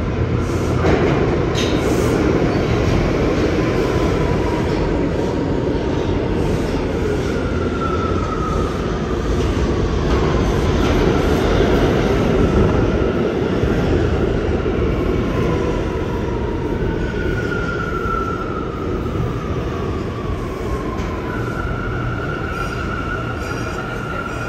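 Bombardier R179 subway train pulling into a station and slowing to a stop. A loud rumble of wheels on rail is joined by a whine that slides down in pitch several times as the train brakes, settling into a steady tone near the end.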